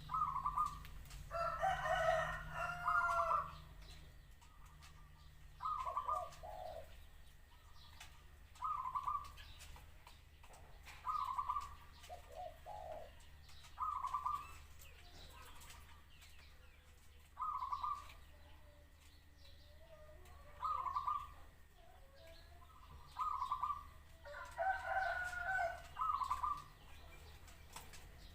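Zebra dove cooing in short phrases repeated every two to three seconds. Twice, about two seconds in and near the end, there is a longer, louder call with a fuller, stacked tone.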